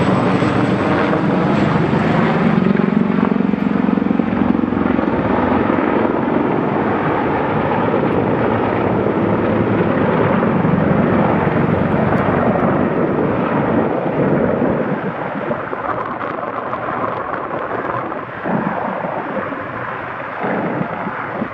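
Sikorsky CH-54A Skycrane heavy-lift helicopter flying overhead: the steady noise of its rotors and twin turbine engines, with a high turbine whine that fades out about two seconds in. The sound grows a little quieter in the last few seconds.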